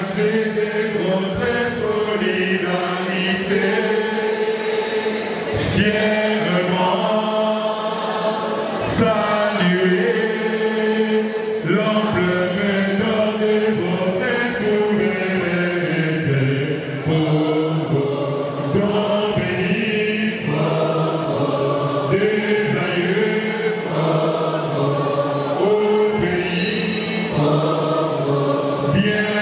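A group of voices singing together in a slow, chant-like hymn, holding long notes that glide from pitch to pitch.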